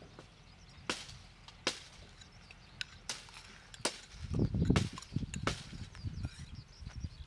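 A metal spoon clicking and scraping against a small ceramic bowl as sauce is scraped out of it, with about six sharp clicks spread a second or so apart and a low rumble of handling noise near the middle.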